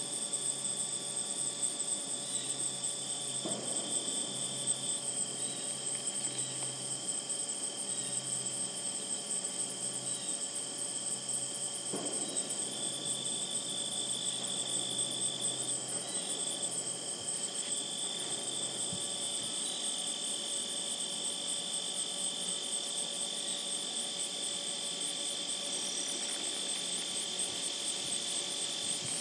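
Insect chorus in a marsh: a steady high-pitched trill, with a second, lower trill that stops and starts every few seconds. A faint low hum lies underneath for roughly the first ten seconds.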